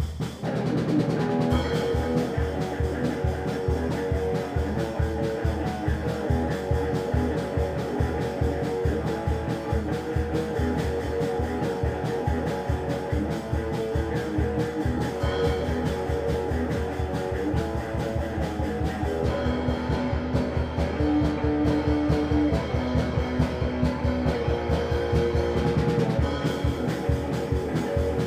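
Crust punk rock band playing instrumentally: electric guitar riff over a fast, steady drum beat, the guitar coming in about a second and a half in after drums alone.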